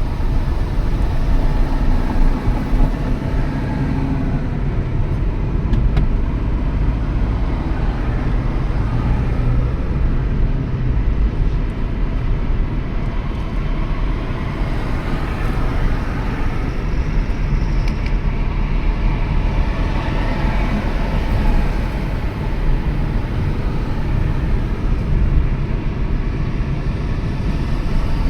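Car driving at steady highway speed: a continuous rumble of tyre, road and wind noise with a strong low drone, the level even throughout.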